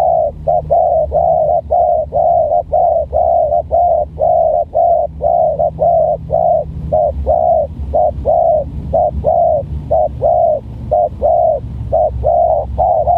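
Spotted doves cooing in a rapid, unbroken run of short coos, about three a second.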